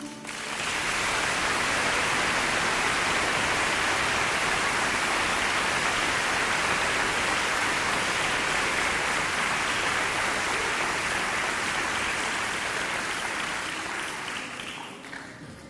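Audience applauding, starting just as the choir's singing stops and dying away near the end.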